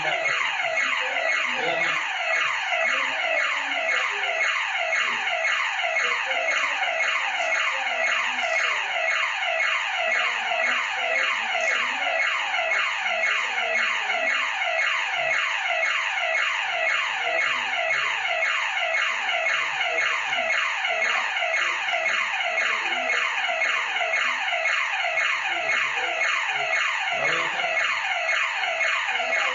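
House burglar-alarm siren going off without pause, a fast repeating sweep about twice a second.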